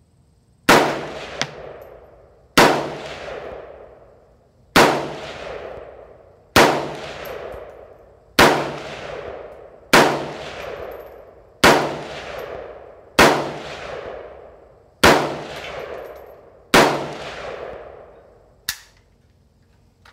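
Norinco Type 56S semi-automatic AK rifle in 7.62×39mm firing ten single shots at a slow, steady pace, about one every two seconds, each report ringing out with a long echo under the range's roof. A single quieter sharp click comes near the end.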